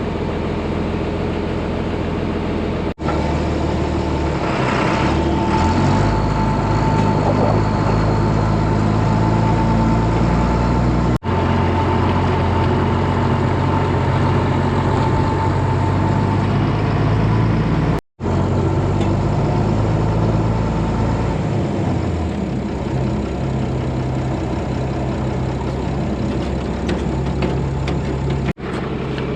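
Farm tractor engine running, speeding up and then slowing down again, cut by four brief sudden dropouts.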